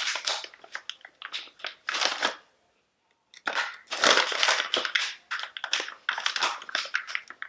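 Close, dense crinkling and crackling of a slime kit's plastic packaging and contents being handled and worked loose. The sound cuts out completely for about a second, about two and a half seconds in.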